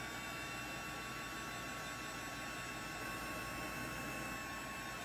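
Small handheld hair dryer running steadily: an even whir with a steady high whine.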